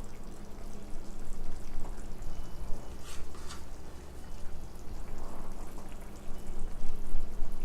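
Chicken gravy simmering in a pan with soft bubbling, over a steady low hum, with two short sharp sounds about three seconds in.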